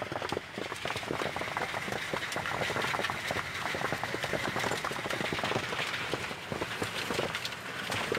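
Hail and rain pelting down steadily: a dense, continuous clatter of many small hailstones striking.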